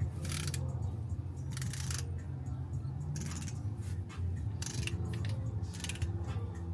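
Ratchet wrench on an extension clicking in several short bursts, one per return stroke, as it runs a freshly sealed differential plug in before torquing it to 25 ft-lb.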